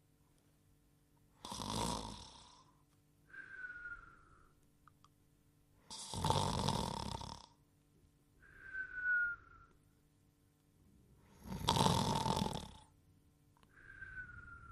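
Cartoon snoring: a loud rasping snore on the in-breath, then a short whistle that falls slightly in pitch on the out-breath. The cycle repeats three times, about five seconds apart.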